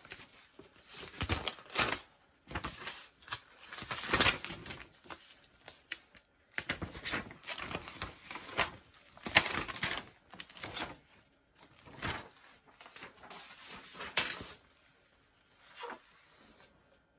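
Sublimation transfer paper rustling and crinkling in irregular bursts as it is peeled, along with its heat tape, off a freshly heat-pressed graduation stole.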